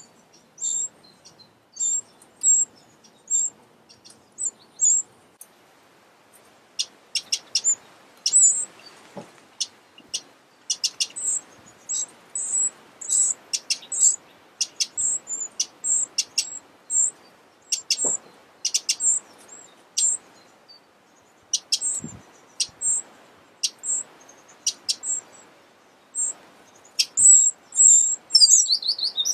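Eurasian wren nestlings in the nest giving short, very high, thin peeps, scattered at first and then crowding into a dense, louder run of begging calls near the end as a parent arrives to feed them.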